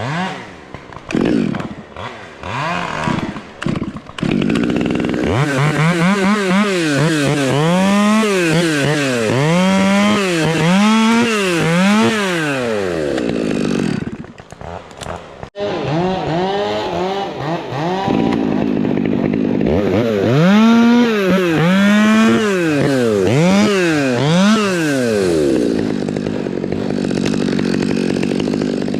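Two-stroke chainsaw running in the cut, its engine pitch rising and falling about once a second as it is revved up and eased off repeatedly, while limbs are cut off a dead fir. It runs choppily for the first few seconds, and near the end it holds a steadier speed.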